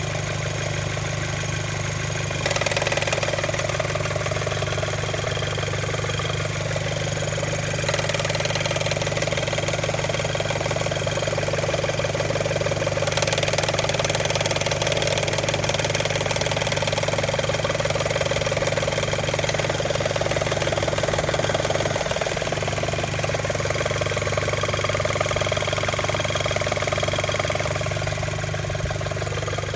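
Audi A4 B7 engine idling warm, with a flapping noise of unknown origin. The owner wonders whether it is a loose timing belt tensioner; no fault codes are stored.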